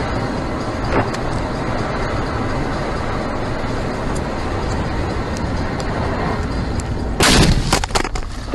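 Steady road and engine noise inside a moving car on an icy highway, then about seven seconds in a sudden loud crash: one heavy impact followed by a few sharp cracks and clatters, typical of a collision.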